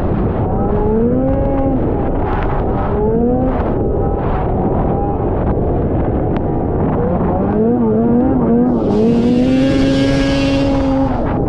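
1979 Ski-Doo Blizzard 7500 snowmobile's two-stroke engine running hard, its pitch rising and falling again and again as it revs. Near the end it holds one steady high note for about two seconds under a loud hiss.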